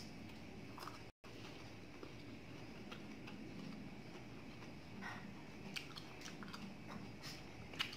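A person chewing soft, ripe mango slices, faintly, with a few small mouth clicks and smacks.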